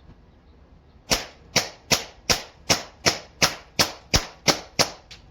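Semi-automatic air rifle emptying its magazine: about a dozen sharp shots in quick, even succession, nearly three a second, starting about a second in, the last one much fainter.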